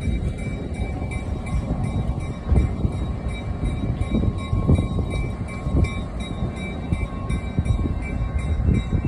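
Diesel locomotive moving slowly past, its engine giving a steady low rumble with occasional louder swells.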